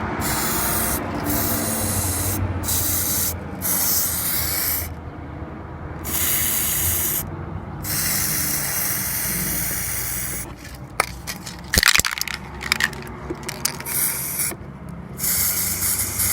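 Aerosol spray paint can sprayed onto the sanded rust-repair area in repeated hissing bursts of a second or two each, with short pauses between them. A cluster of sharp clicks comes about two-thirds of the way through.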